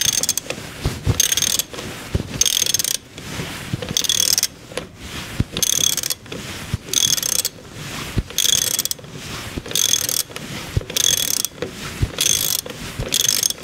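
Ratchet wrench clicking in repeated short strokes, a burst of clicks well under a second apart, as a long bolt is run in on the front fork of a motorcycle.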